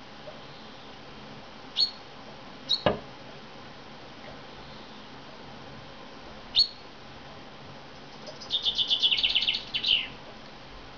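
Male chaffinch giving short sharp call notes three times, and pecking once hard against the window glass about three seconds in. Near the end comes a rapid, falling trill of chaffinch song lasting under two seconds.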